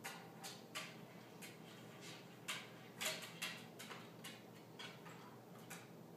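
Light, irregular clicks and knocks of a Cavalier King Charles Spaniel's claws and paws on a wooden chair and tabletop as it climbs up onto the table, unevenly spaced with the loudest about three seconds in, over a faint steady room hum.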